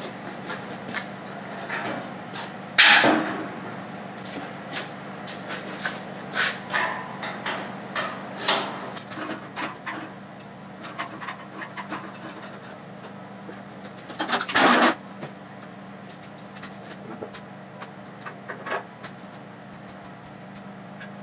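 Scattered knocks and clanks of steel parts and hardware being handled and fitted, with two louder noisy bursts about 3 seconds and 14 seconds in, over a steady low hum.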